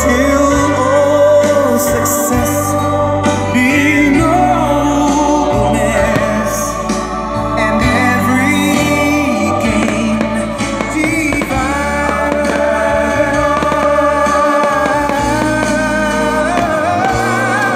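Music: a song with a singer and instrumental backing, playing without a break.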